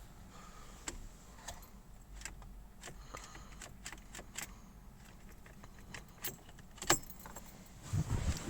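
Scattered small clicks and light jingling, with one sharper click about seven seconds in.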